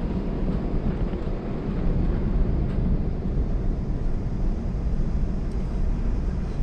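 Steady deep rumble and rush inside the cabin of an Airbus A380 rolling along the runway after touchdown: its Engine Alliance GP7200 engines and the airflow over the airframe, swelling slightly about two seconds in.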